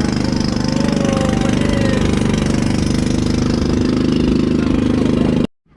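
Motorized bangka outrigger boat's engine running steadily under way, with a loud, even, rapid pulsing drone that cuts off abruptly near the end.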